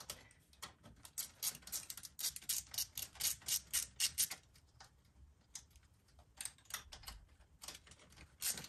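Hand ratchet wrench clicking in quick runs as a bolt holding the air cleaner on a TrailMaster XRS 150 buggy's engine is loosened. There is a pause in the middle, and the clicking starts again near the end.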